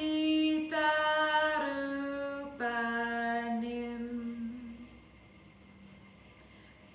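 A woman chanting a Sanskrit mantra unaccompanied, singing the closing words of the verse in long held notes that step down in pitch. Her voice fades out about five seconds in, leaving a short pause.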